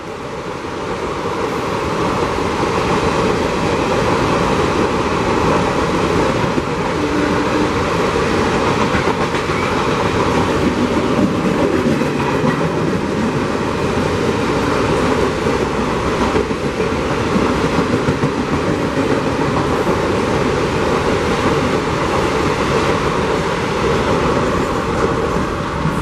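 Express train's passenger coaches running through at speed close by: a steady, loud rush of wheels on the rails that builds over the first couple of seconds and then holds.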